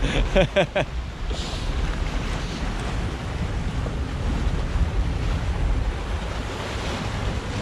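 Water churned by a Lazzara 75 LSX motor yacht's pod drives as it manoeuvres at low speed, with a steady low rumble underneath and wind buffeting the microphone.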